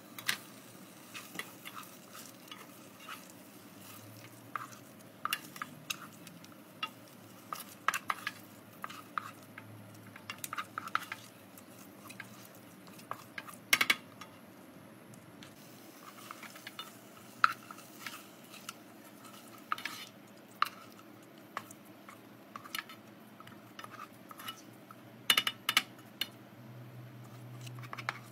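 Wooden spoon stirring boiled eggs through thick chilli sambal in a nonstick saucepan: irregular scrapes, taps and knocks against the pot, a few louder knocks midway and near the end.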